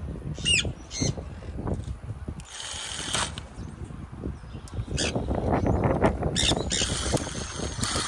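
Cordless drill driving screws through metal nail clips into a wooden ledge in several short bursts, over handling knocks. A bird call sweeps through about half a second in.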